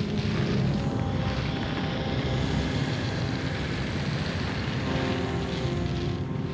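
A steady low droning rumble with a faint hiss above it, unchanging in level throughout.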